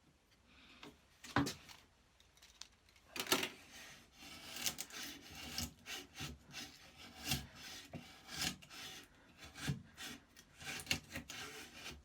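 Record No. 71 router plane's blade shaving wood in short, uneven scraping strokes about once a second, with a sharper stroke about a second in.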